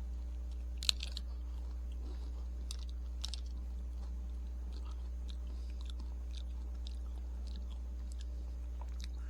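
Chewing and crunching on a hard, frozen ice cream bar with a crumbly coating, with scattered crisp clicks; the sharpest comes about a second in. A steady low hum runs underneath.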